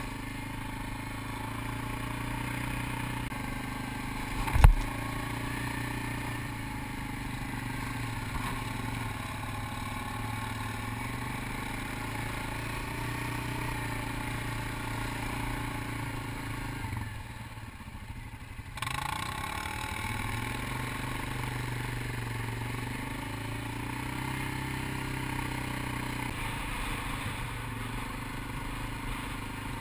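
ATV engine running under throttle. There is one sharp thump about four and a half seconds in. A little past halfway the engine drops away for a moment, then revs back up.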